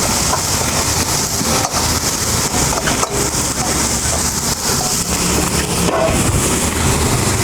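Chopped beto shak (bathua greens) sizzling in hot oil in a frying pan, a steady hiss, with a few clicks of the spatula turning them, over a continuous low rumble.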